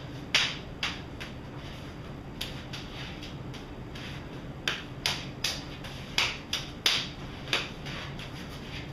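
Hands and forearms slapping against each other in a fast eskrima tapping drill: a quick, irregular series of sharp slaps, bunched most thickly in the second half.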